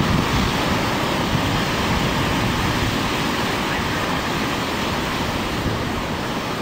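Rough sea: heavy surf breaking and washing up a rocky beach, a steady rush of wave noise, with wind buffeting the microphone.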